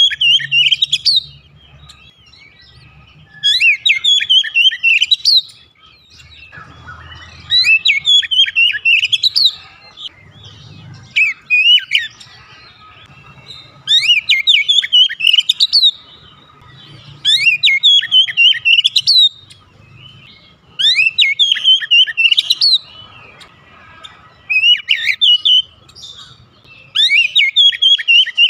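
Oriental magpie-robin singing: loud, varied phrases of quick whistled and slurred notes, a phrase every three seconds or so with short pauses between.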